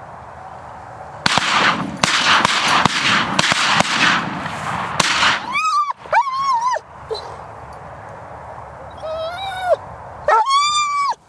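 Hunting dog whining eagerly to be sent out on a retrieve, four high whines that rise and fall, in two pairs. Before them comes a few seconds of loud rustling close by.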